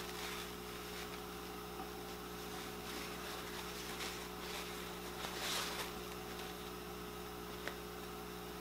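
A paper towel wiping the rims of glass canning jars: a few faint, soft rubbing sounds about four and five and a half seconds in, and a small click near the end, over a steady low hum.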